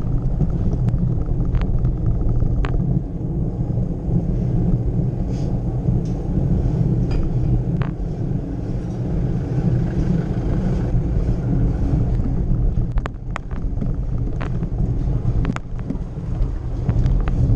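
Steady low rumble of a bicycle rolling slowly uphill over cobblestones, heard through a bike-mounted action camera that picks up the jolting. Scattered sharp clicks and knocks throughout, thickest in a cluster about three-quarters of the way in.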